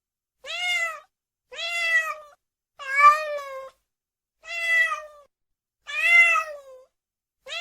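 Domestic cat meowing: six drawn-out meows about one every second, each rising and then falling in pitch.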